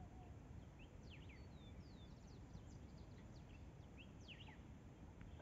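Faint chirping of small birds: a quick scatter of short, high notes sweeping up and down, over a low steady background rumble.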